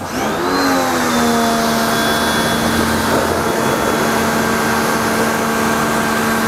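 Motoyama 135-bar electric pressure washer kicking in suddenly: its motor and pump whine up in pitch over about a second, then run steadily under the hiss of the water jet spraying.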